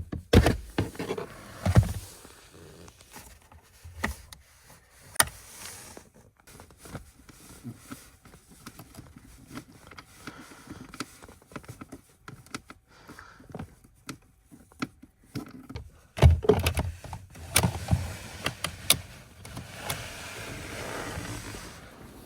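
Irregular clicks, knocks and thumps of plastic parts and tools being handled while working on a car's blower motor, with a run of louder thumps about sixteen seconds in and a faint rubbing hiss near the end.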